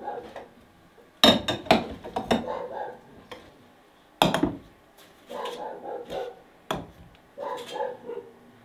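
Glass jars clinking and knocking as they are lifted off a wooden shelf and set down on a metal tray: several sharp knocks, each with a brief ring.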